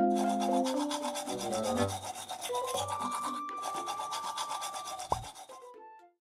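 Small toothbrush scrubbing rapidly back and forth over a cat's teeth: a steady, rasping rub with a brief break about three and a half seconds in. It stops shortly before the end.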